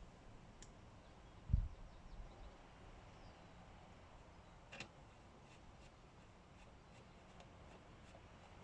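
Quiet workbench handling: a dull thump about a second and a half in, a sharp click near the middle, and a few faint small clicks of parts being handled.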